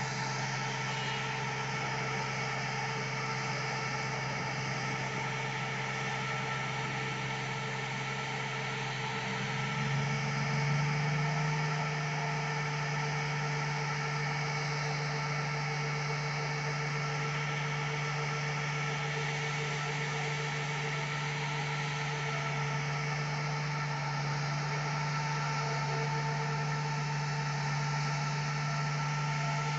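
Diesel engine of a rail-mounted breakdown crane running steadily with a low hum, rising a little in pitch and loudness about ten seconds in.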